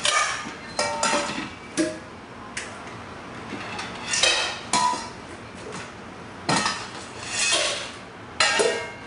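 Bowls and utensils clinking and clattering in irregular bursts while dog food is dished out, with a few sharp clinks that ring briefly.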